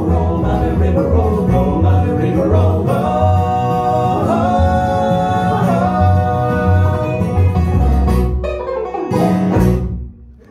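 Live bluegrass band playing the last bars of a song: upright bass, acoustic guitar, banjo and fiddle under sung harmony vocals, with the bass plucking a steady beat. The song ends on a final chord a little over nine seconds in that dies away quickly.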